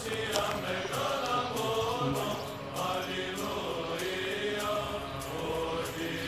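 Orthodox church chant: voices singing long, slowly bending melodic lines without a pause.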